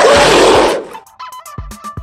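A loud cartoon animal roar sound effect that stops about a second in, followed by upbeat electronic music with a thumping kick drum and held synth notes.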